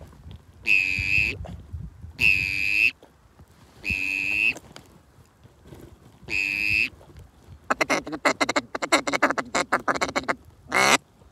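Duck call blown in four long quacks, one to two seconds apart. A fast run of short quacking notes follows, and one more quack comes near the end, calling in approaching ducks.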